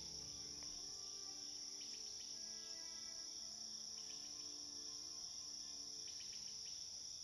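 Steady high chirring of crickets, with soft music of held notes underneath that fades out about six seconds in.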